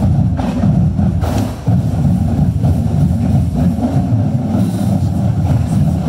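Marching band brass and drums playing loudly, the sound heavy in the low end and distorted, with a brief drop in level about a second and a half in.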